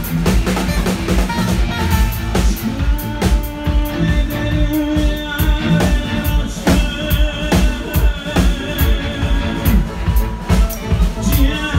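Live band music without words: a steady drum-kit beat under a sustained melodic instrumental line.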